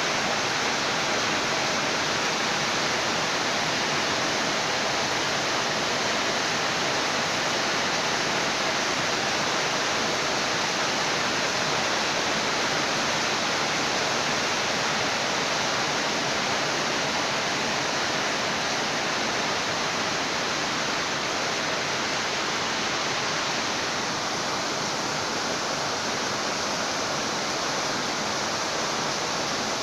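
Steady heavy rain, an even hiss that holds without let-up.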